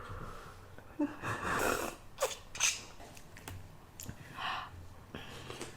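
Someone slurping hot ramen broth from a cup: several short noisy sucks of air and liquid with pauses between them, the longest about a second in.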